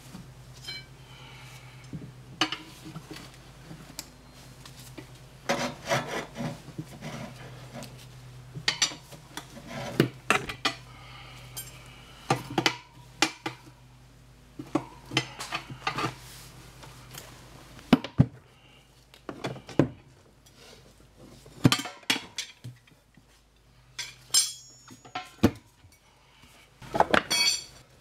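Steel tire levers clinking, knocking and scraping against a motorcycle's spoked wheel rim as the bead of a new rear tire is levered on. The knocks come irregularly, several sharp ones close together at times.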